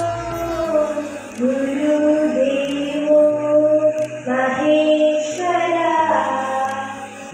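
A girl singing solo into a microphone, a slow chant-like melody of long held notes that slide from one pitch to the next.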